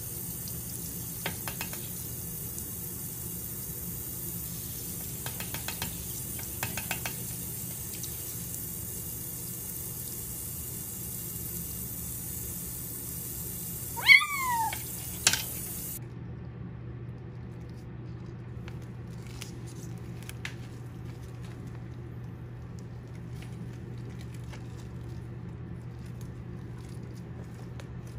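A kitten mews once, about halfway through: a short cry that rises and then falls in pitch. It comes over the hiss of a faucet running into a sink, and the hiss stops a couple of seconds after the cry.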